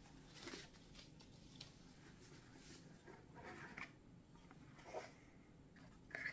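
Near silence with a few faint scrapes and taps of a cardboard gift box being handled, its lid lifted off.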